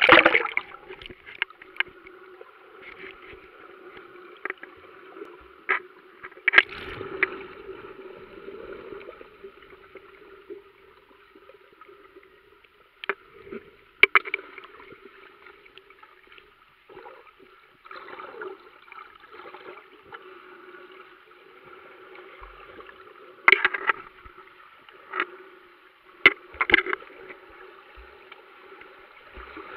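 Underwater sound picked up through a waterproof action-camera housing: a muffled, steady wash of water with scattered sharp clicks and knocks, loudest in a burst at the very start.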